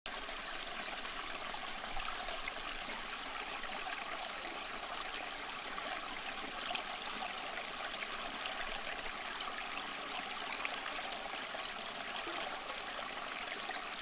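Water trickling and splashing steadily down the stepped tiers of a small tabletop waterfall fountain into its basin.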